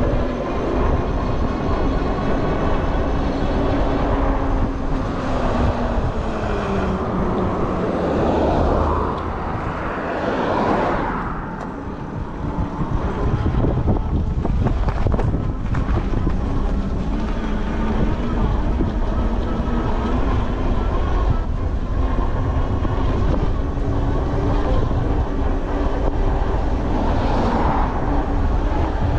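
Sondors Fold X electric folding bike being ridden on pavement: a steady rumble with a humming tone from the rear hub motor. The hum bends in pitch about ten seconds in, and the overall sound dips briefly just after.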